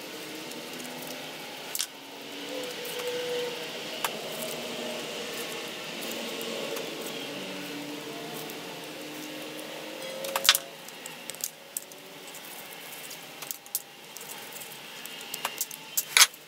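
A few sharp clicks and clinks of small parts being handled on a workbench, the loudest about ten seconds in and a cluster near the end, over a faint steady background hum.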